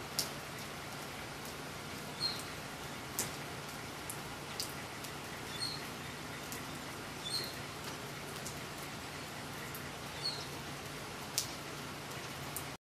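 Cat lapping milk from a saucer: small, irregular wet clicks over a steady background hiss and low hum.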